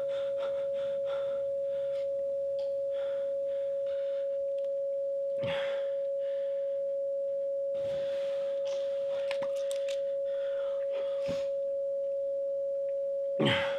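A single steady electronic sine tone, held unbroken at one pitch as a tense drone in a horror film soundtrack. A few soft noises come over it, and a short, sharper noise sounds near the end.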